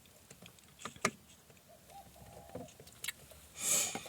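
A few light clicks and taps from cookware being handled, with a short swish about three and a half seconds in.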